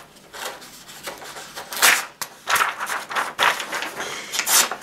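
Sheet of paper rustling and crinkling in irregular bursts as an Extrema Ratio Task C knife blade is dragged against it; the blade catches and snags instead of slicing cleanly, failing a simple paper-cutting test.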